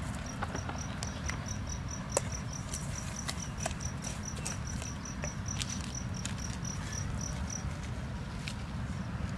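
An insect chirping in a quick, even series of high pulses that stops about seven and a half seconds in, over a steady low rumble, with scattered light clicks and one sharp tap about two seconds in.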